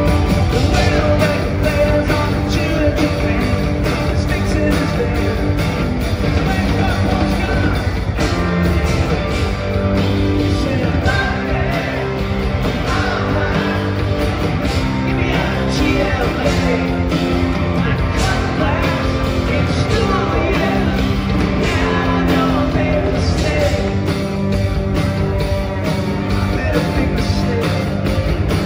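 Live rock band playing loudly, heard from within the audience: electric guitars, bass and drums with a male lead vocal.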